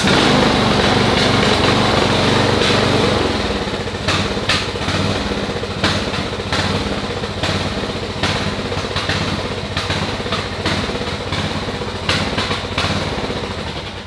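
Ariens riding mower's 17.5 hp Briggs & Stratton engine running just after starting on a newly fitted carburetor, running a little rough. It is loudest in the first few seconds, then settles slightly lower.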